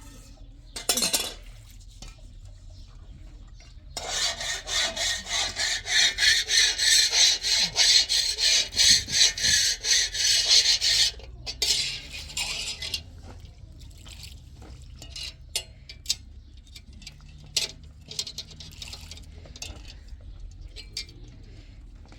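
Kitchen utensils at work: a short clink, then a long run of fast, even scraping strokes, about three a second, followed by scattered clicks and knocks.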